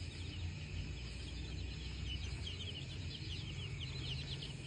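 A brood of baby chicks peeping, many short overlapping cheeps with no break.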